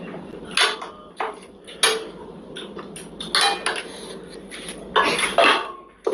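Cutlery clinking and scraping against plates during a meal, in scattered sharp clicks with a denser cluster a little after the middle and again near the end.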